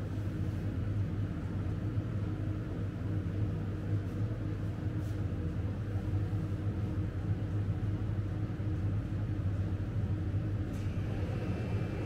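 Steady low electric hum of a shop's refrigerated drinks cooler, even and unchanging.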